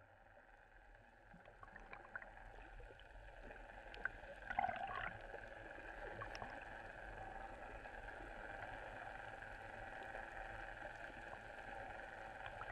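Faint, muffled underwater sound picked up by a camera held below the surface: a steady low hum with a few clicks, and a brief gurgle about four and a half seconds in.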